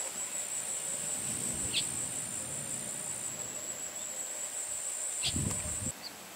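Insects trilling steadily at a high pitch, with a few short bird chirps. A brief low rumble comes just before the ambience drops suddenly in level near the end.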